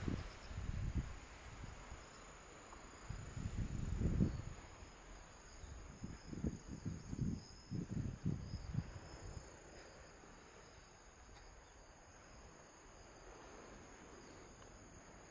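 Insects chirping in steady, thin, high tones, with low rumbling thumps that are louder over the first nine seconds or so and then die away.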